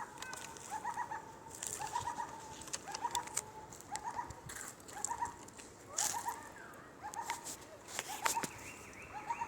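Birds calling: a short low call repeated about once a second, with sharp high chirps between the calls. Near the end a higher repeated call joins in.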